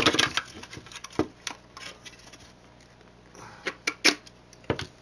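Sharp clicks and clacks of small parts being pried and popped off a piece of electronics with a hand tool: a quick cluster at the start, then scattered single clicks, with a louder pair about four seconds in.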